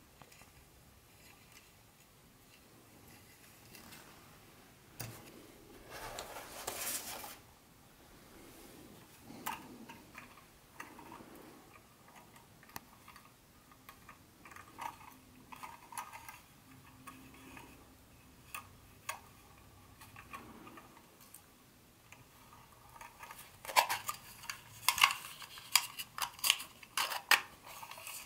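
Small hard plastic and metal train-set parts being handled and clicked together, with a brief rustle about six seconds in and a rapid flurry of sharp clicks and clatter near the end.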